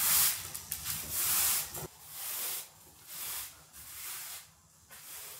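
Broom sweeping a tiled floor: a run of short swishing strokes, roughly one every two-thirds of a second, growing fainter toward the end.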